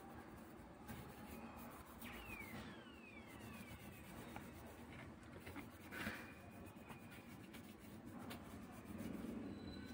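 Faint rubbing of a tissue wiping old, hardened thermal paste off a graphics card's GPU chip, with a few soft clicks.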